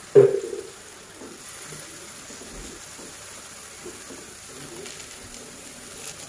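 Stir-fried green beans and meatballs simmering in a wok with a low, steady sizzle while a spatula stirs them, with one sharp knock just after the start.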